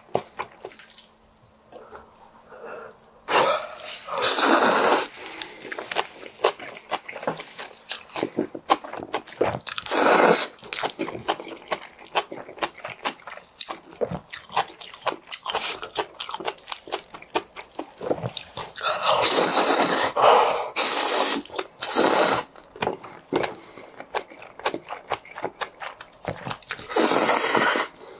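Close-miked eating of noodles and green onion kimchi: wet chewing and lip smacking throughout, broken by several loud slurps of about a second each.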